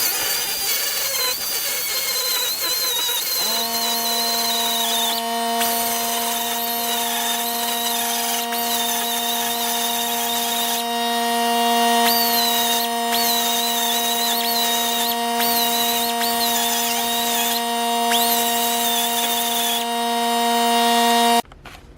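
Power grinding tool whining at high speed as it shaves down a shifter bushing, its pitch dipping each time it bites into the part. A steadier lower hum joins about three and a half seconds in and cuts off suddenly just before the end.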